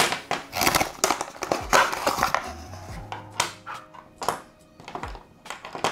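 Clear plastic tubes of soldering-iron tip cartridges clicking and knocking against each other and the tabletop as they are handled and set down in a row: a run of short, uneven clicks.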